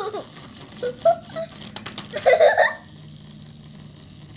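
Light clicking and rattling of plastic toys on a toy playset, with a few short high voice sounds about one and two seconds in.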